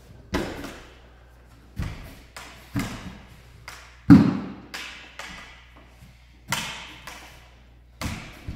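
Lightsaber blades knocking against each other in sparring: about ten sharp, uneven clacks with a short echo after each, the loudest about four seconds in.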